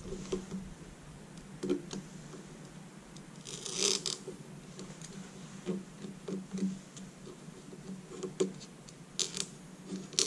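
Small plastic handling noises and clicks as a blade cuts the thin reflector sheet along the LCD panel's lamp edge and the sheet is peeled away, with a short scraping rasp about four seconds in and shorter ones near the end.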